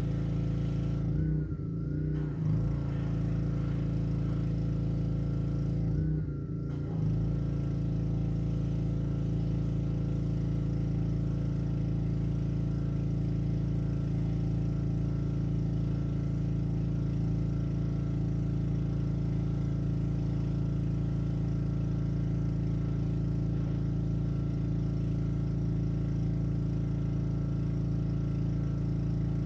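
Honda small engine on a Black Max pressure washer running steadily, with its note briefly dipping and wavering twice in the first seven seconds.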